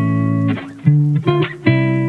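Background music: a guitar-led track with sustained plucked notes in a steady rhythm.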